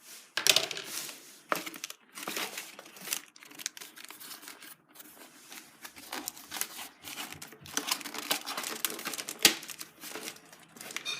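Toy packaging being handled, crinkling and tearing in irregular rustling bursts with sharp crackles, as the toy car is taken out of its box.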